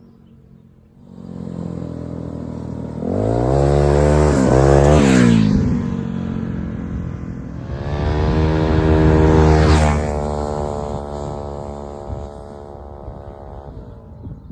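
Rex RS 460 scooter's GY6 139QMB 50cc four-stroke single running through an aftermarket sport exhaust, revved up twice with the pitch rising and wavering, then dropping back toward idle.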